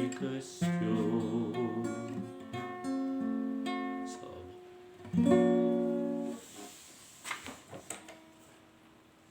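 Acoustic guitar playing the closing chords of a song: a final strummed chord about five seconds in rings out and fades, followed by a few soft knocks near the end.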